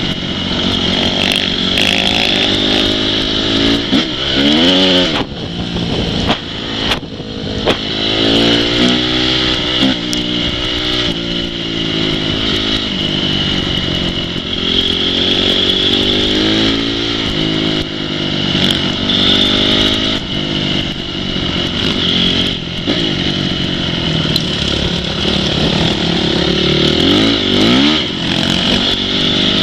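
Off-road motorcycle engines revving up and down over and over, several at once, their pitch rising and falling as the riders open and close the throttle.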